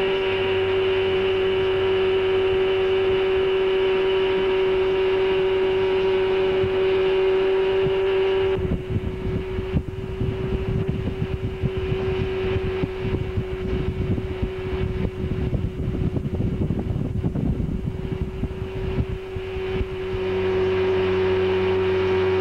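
Tow boat's engine droning at a steady pitch. About nine seconds in, a rough, uneven rumble like wind buffeting the microphone covers much of it while the drone carries on underneath. Near the end the smoother drone comes back.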